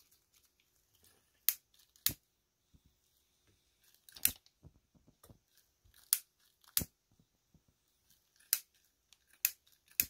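About eight sharp clicks and taps, unevenly spaced, from gloved hands handling the battery lead, heat-shrink tubing and metal helping-hands clamp on the workbench.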